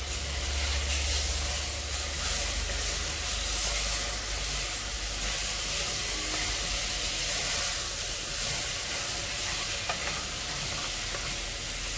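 Broken wheat, vegetables and green masala paste sizzling in oil in a pressure cooker as they are stirred with a wooden spatula: a steady sizzle.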